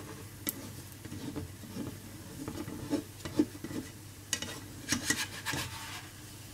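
Slotted spatula scraping and rubbing against a frying pan in short strokes as it works under a crêpe, over faint sizzling.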